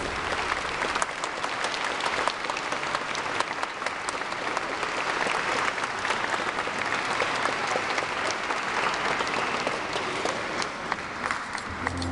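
A crowd of guests applauding, many hands clapping steadily at once.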